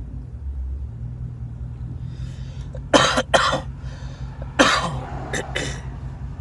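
A person coughing several times, two coughs about three seconds in and a few more around four and a half to five and a half seconds, over the steady low drone of a car on the road.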